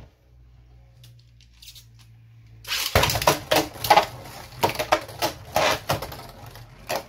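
Beyblade Burst spinning tops clattering in a plastic Hyperstar stadium: from about three seconds in, a fast run of sharp clicks and knocks as the tops strike each other and the stadium walls. Before that there is only a faint steady low hum.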